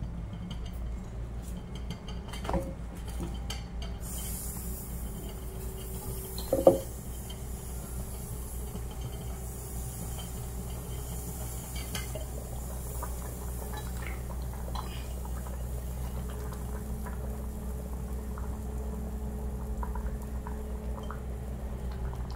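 Metal cookware being handled on a stovetop: pots, a pan and a stainless-steel lid clinking and clanking, with one loud clank about six and a half seconds in and lighter clicks later. Under it runs a steady low hum, and a faint high hiss starts about four seconds in.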